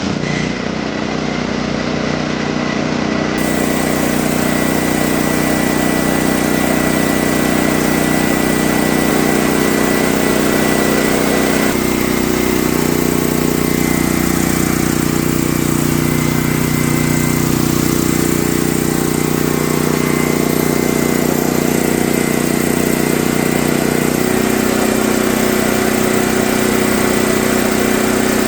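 Honda GX390 single-cylinder engine on a portable generator running steadily after its gummed-up carburetor was cleaned, now starting and holding speed. Its pitch shifts slightly about twelve seconds in and again about twenty-four seconds in.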